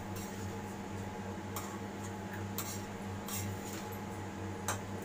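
A metal spatula stirring cluster beans and potatoes in a metal kadhai, with a few sharp clinks of spatula on pan spread through the stir. A steady low hum runs underneath.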